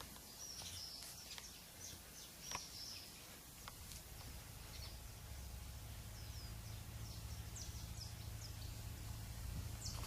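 Small birds chirping faintly in short, high notes scattered throughout, over a low steady hum that grows a little louder about halfway; a couple of faint clicks in the first half.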